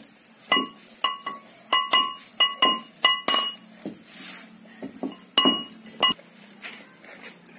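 Metal pestle knocking and scraping inside a metal mortar, freeing pounded rice flour stuck to the bottom. It gives sharp, ringing clinks: a quick irregular run in the first few seconds, then a short pause, then a few more.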